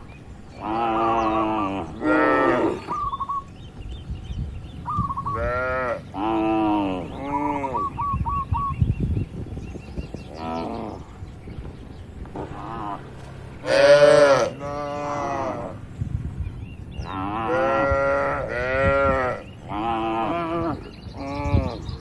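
A herd of cattle mooing, call after call from several animals at different pitches, some overlapping. One call about two-thirds of the way through is the loudest.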